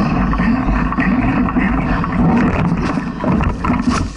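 Wind buffeting and the rattling rumble of a mountain bike riding fast over a leaf-covered dirt trail, picked up by a camera mounted on the bike. Near the end come a few sharp knocks, and then the noise drops off suddenly as the bike comes to an abrupt stop and goes down on its side.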